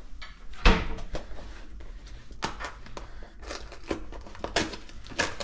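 Items being handled in a kitchen: irregular clicks, knocks and light rustling, with one louder thump just under a second in.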